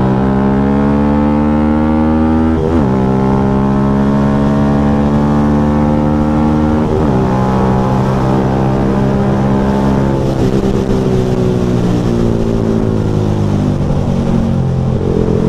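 Small motorcycle's engine running under acceleration. Its note drops sharply at gear changes about three and seven seconds in, then climbs again after each.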